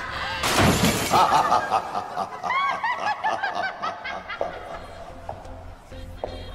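A crash as a falling body lands on a heap of musical instruments about half a second in. It is followed by a run of cackling laughter in rapid rising-and-falling 'ha-ha' calls that dies away after a few seconds.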